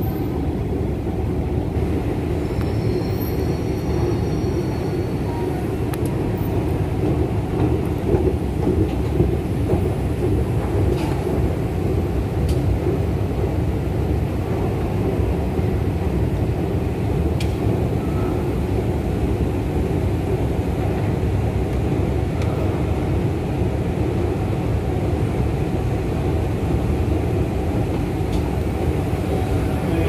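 Steady low rumble of a station escalator's machinery, with the noise of a large hard-walled station hall.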